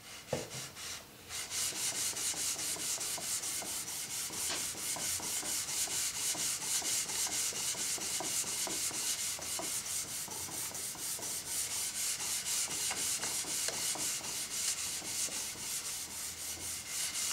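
Steel jointer knives, clamped in a sharpening jig, stroked back and forth on wet 40-micron 3M micron-graded abrasive film laid on a granite slab. It makes a steady, rasping hiss of quick, even strokes that starts about a second and a half in.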